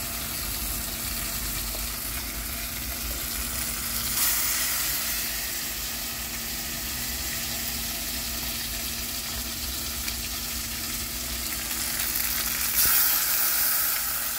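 Hot oil in a kadai sizzling steadily as batter-coated pumpkin flowers deep-fry into pakoras. The sizzle flares louder about four seconds in and again near the end, as more battered flowers go into the oil.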